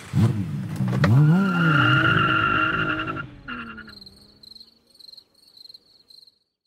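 Car engine revving hard twice, pitch rising and falling, then tyres squealing in a steady screech for about two seconds. A faint run of quick high chirps follows and dies away.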